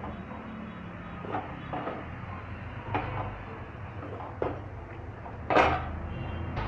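A metal knife tapping and scraping against a roti and the gas burner's pan support as the roti is turned over the open flame: a handful of short knocks, the loudest about five and a half seconds in, over a steady low hum.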